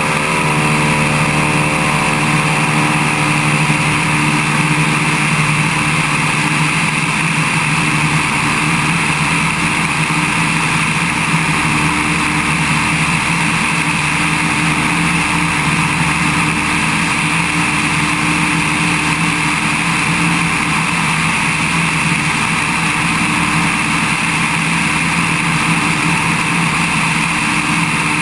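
Small biplane's piston engine and propeller running at takeoff power during the takeoff roll and climb, a steady, loud drone mixed with rushing wind on an exposed microphone.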